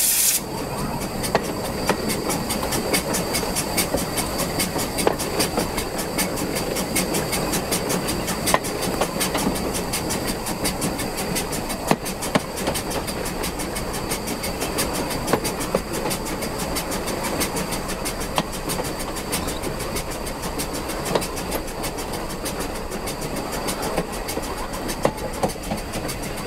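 Steam-hauled train running steadily uphill, its wheels clicking rhythmically over the rail joints beneath a continuous running rumble.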